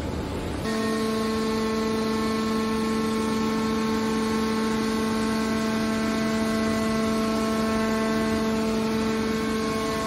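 Hydraulic power unit of a scrap metal baler running with a steady, pitched hum, starting up about a second in while the baler's hydraulic lid folds shut.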